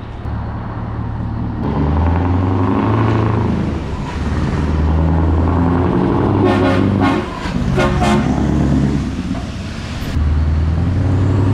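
Scania truck's diesel engine pulling away with a loaded low-loader, with two short blasts of its air horn a little past halfway.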